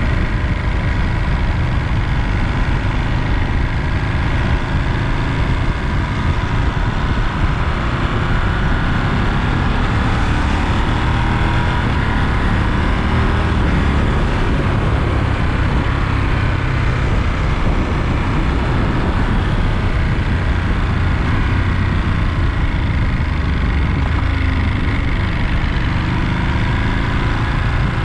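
Ducati Monster 937's Testastretta 11° V-twin engine running on the move, a steady low rumble whose pitch rises and falls several times as the throttle is opened and eased.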